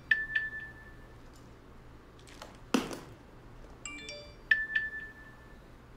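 WeChat message notification tone sounding twice on a smartphone, about four seconds apart. Each time it is a quick cluster of high ringing notes ending in a held tone. A single short knock comes between them.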